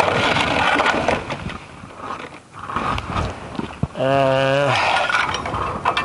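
A man's wordless vocal sounds: loud breathy noise, then a short held, wavering 'uhh' about four seconds in.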